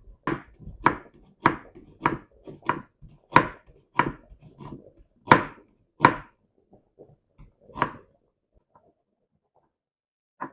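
Kitchen knife slicing an onion on a cutting board, one sharp cut about every half second, stopping about eight seconds in.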